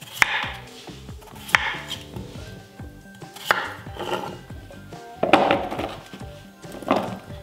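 A chef's knife chopping through peeled potatoes onto a wooden cutting board: a few sharp, separate cuts a second or two apart. Near the end, potato chunks knock as they are set into a baking dish. Soft background music.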